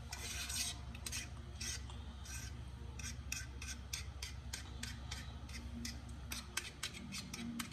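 A fork beating egg mixture in a bowl: irregular clicks and scrapes of the fork against the bowl's side, coming faster near the end.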